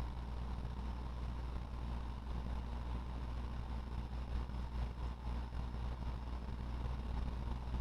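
A steady low hum with a faint high tone above it, unchanging throughout.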